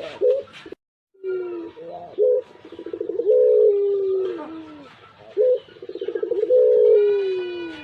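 Pugeru dove, a hybrid of zebra dove and barbary dove, cooing in repeated long phrases. Each phrase is a short rising note, then a fast rolling trill, then a long drawn-out coo that slides down in pitch. The sound cuts out briefly about a second in.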